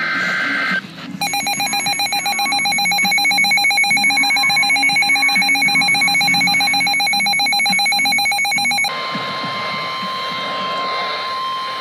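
Emergency alert broadcast tones. A rapidly pulsing, ringing electronic alert tone sounds for about eight seconds, then gives way to a single steady warning tone that holds to the end.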